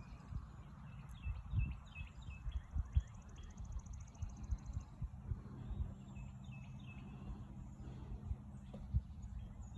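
Small birds chirping repeatedly, over a steady low rumble with scattered thumps.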